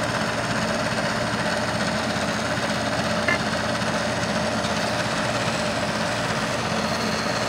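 CNC milling machine running steadily, its end mill cutting a pocket in a clamped metal plate, with a single short tick a little over three seconds in.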